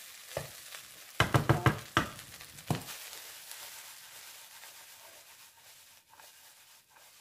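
A wooden spatula stirs and tosses fried rice in a nonstick pan, with a quick run of sharp clattering knocks from spatula and pan about a second in and one more knock near three seconds. Faint sizzling fades away after that.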